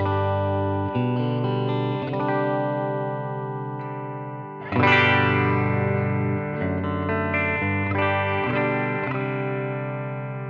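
Electric guitar played through the AmS Hurricane 20 combo amplifier: chords strummed and left to ring, a new chord every second or two, with the hardest strum about halfway through.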